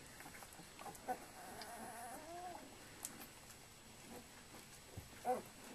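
Flat-coated retriever puppies whimpering: a faint drawn-out whine about two seconds in and a short, louder squeak near the end.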